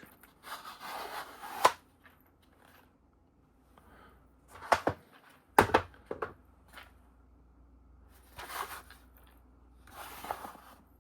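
Wooden watchmaker's parts boxes being handled: a few short sliding scrapes and several sharp wooden knocks and clicks, the loudest a pair of knocks in the middle.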